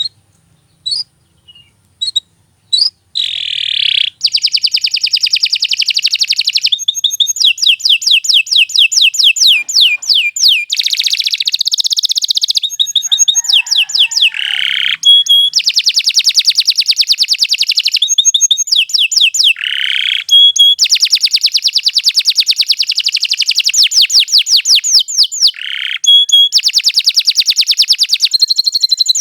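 Domestic canary singing a long song in full voice: a few single chirps, then from about three seconds in a nearly unbroken run of fast trills and rolls of repeated high notes, with only brief pauses.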